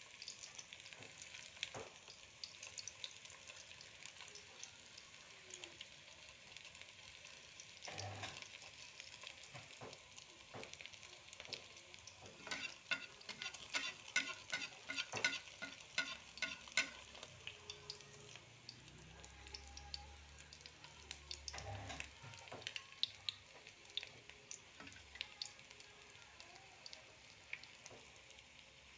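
Food cubes shallow-frying in hot oil in a wok: a steady sizzle with many sharp crackling pops, busiest around the middle, and a couple of dull knocks against the pan.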